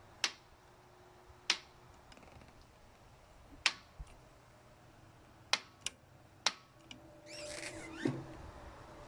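Sharp, irregular ticks, about eight of them, one to two seconds apart, from what the owner takes to be the clutch of a 2003 Harley-Davidson Sportster. A brief rushing noise comes near the end.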